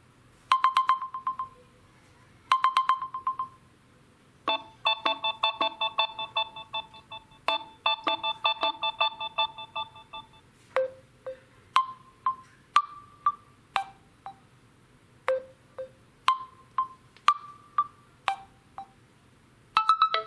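Samsung Galaxy M01 stock ringtones playing: two short trilling rings, then a fast, rhythmic chiming pattern, then a slower tune of single plucked notes.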